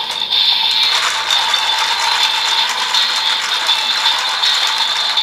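Toy DX Build Driver transformation belt being cranked by its red handle: its plastic gears ratchet with rapid, continuous clicking while the belt plays a steady electronic tone through its speaker, the standby sound of the Hawk–Gatling transformation sequence.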